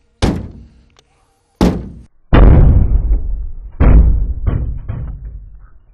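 An AR-15 rifle with a green laser sight mounted on it is dropped repeatedly onto a pickup truck's bed in a durability test of the laser's zero. It makes a series of sharp knocks and clatters: two lighter ones, then two heavy thuds, each followed by a low rumble that dies away, and a few small knocks near the end.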